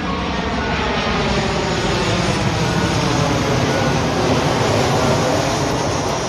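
Jet airliner passing low overhead: a loud engine roar that swells to a peak about four seconds in and then eases, its tones sliding steadily lower in pitch as the aircraft goes by.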